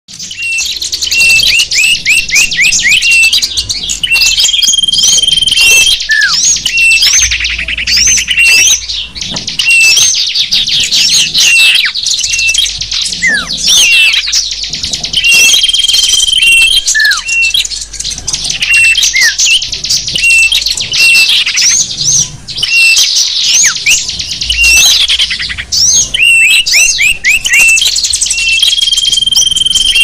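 Mixed chirping and twittering of small songbirds, dense and without pause. Short level whistled notes recur every ten seconds or so. It is a bird-lure (pikat) recording of small birds, used to draw in wild small birds.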